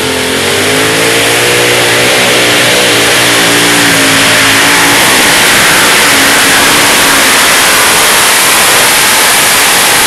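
Multi-engine modified pulling tractor Sea Side Affair running at full throttle while pulling the weight sled, a loud, steady engine noise throughout.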